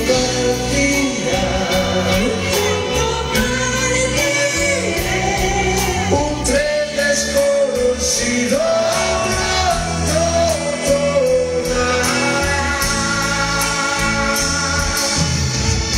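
Live band playing a romantic ballad: singing over electric guitar, bass, drums and keyboard, with a steady cymbal beat, heard through the stage PA.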